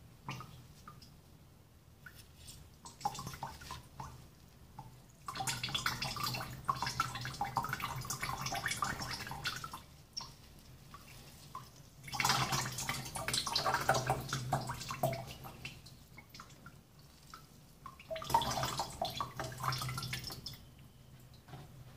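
Hopped wort squeezed out of a cloth hop bag, dripping and trickling through a plastic strainer into a plastic jug, in three spells of a few seconds each as the bag is wrung.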